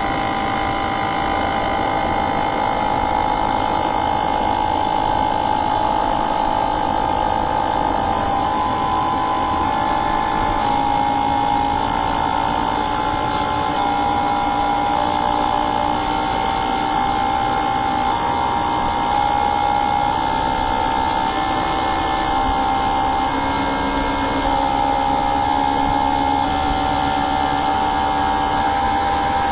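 Air conditioner unit running steadily, a constant rushing noise with a whine whose pitch shifts slightly up and down in small steps.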